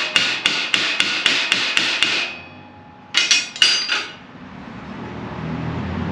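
Hand hammer striking sheet metal, folding an edge over: a run of ringing metallic blows about four a second, a short pause, then a quick flurry of several more strikes.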